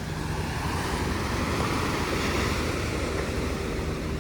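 Ocean surf: a wave breaking and washing in, swelling to a peak about two seconds in and then easing off.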